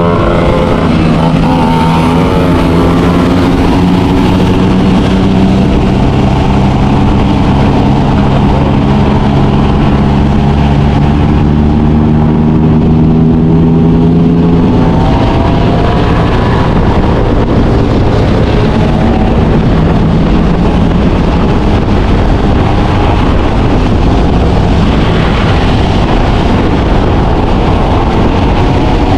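Motor scooter engine running while riding, its pitch rising about halfway through and again near the end, over steady wind rush on the microphone.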